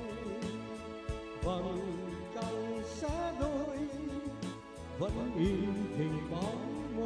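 A man singing a slow Vietnamese ballad into a handheld microphone, holding wavering notes in short phrases, accompanied by an electronic keyboard.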